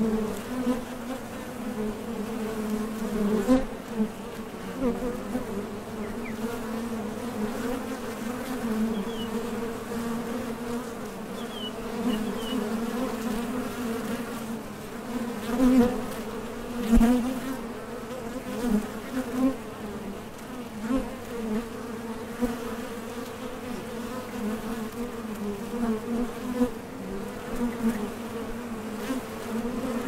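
Honey bees buzzing in a steady, many-voiced low hum, with louder buzzes now and then as single bees fly close while coming and going.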